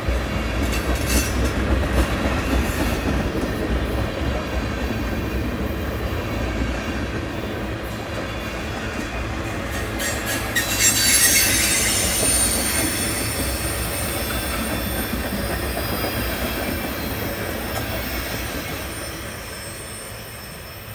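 A train passing close by: a steady rumble of wheels on rail with clicks over the rail joints, and a high wheel squeal coming in about halfway through. The sound fades near the end.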